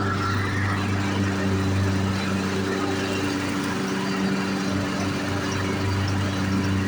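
Troy-Bilt lawn mower engine running steadily at a constant speed.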